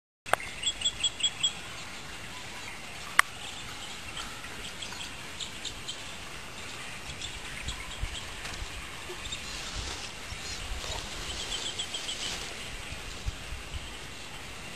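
Small birds chirping in quick runs of short high notes, near the start and again near the end, with scattered chirps between, over a steady outdoor background hiss. A single sharp click about three seconds in.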